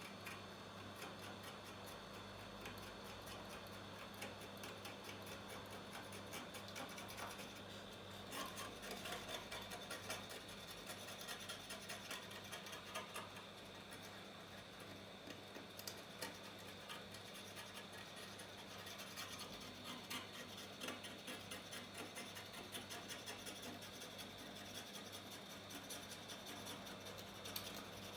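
Faint, irregular scratching and clicking of a razor blade scraping leftover glue and glass off an iPhone 8 Plus's metal rear housing, over a steady electrical hum.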